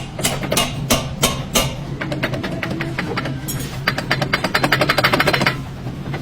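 Toyota Camry's worn front CV joint clicking, about three clicks a second at first and then a fast run of clicks near the middle, over a steady low hum.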